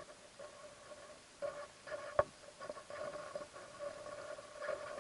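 Muffled underwater sound heard through a submerged action camera's waterproof housing: a faint, wavering hum with scattered small clicks and one sharp knock about two seconds in.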